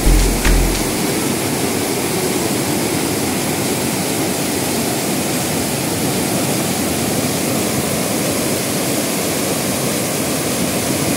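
Steady roar of river water rushing and splashing down the stepped stone weir of an anicut. The last low beats of background music fade out in the first second.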